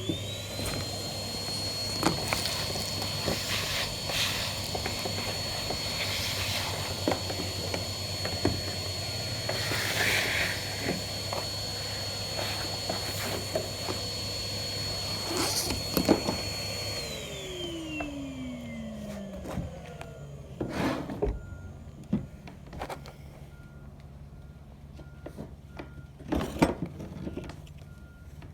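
An electric oscillating multi-tool spins up at the start and runs steadily with a high whine as it cuts back a fiberglass deck top, with scattered clicks and knocks from the work. About 17 seconds in it is switched off and its whine falls away over about three seconds. Only separate knocks and taps follow.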